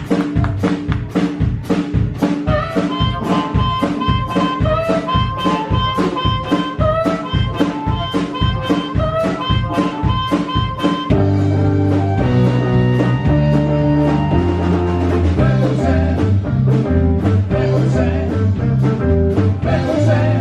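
Live blues band playing: a steady drum beat with a lead melody line over it, then about eleven seconds in the bass and the full band come in and the music gets fuller.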